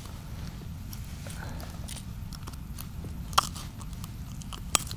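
Handling noise while a hooked pike is freed by hand, without tools: scattered small clicks and crunches, with two sharper clicks about three and a half and nearly five seconds in, over a steady low rumble.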